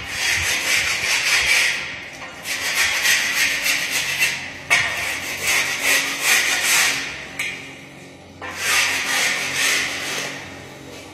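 Harsh scraping of a hand tool worked against a hard surface on a building site. It comes in four spells of about two seconds each, with short pauses between.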